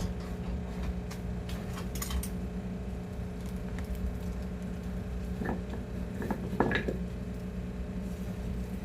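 A few light clinks of a metal cooking pot and utensils, bunched together about five to seven seconds in, over a steady low hum.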